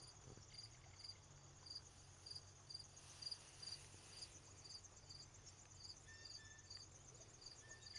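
Faint crickets chirping, a high, evenly repeated chirp about twice a second.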